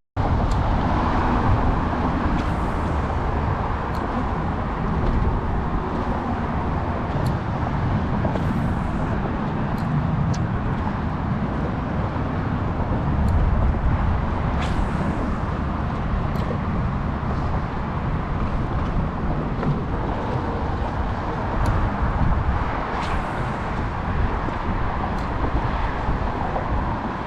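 Small fishing boat running under way, a steady heavy rumble of motor and wind noise.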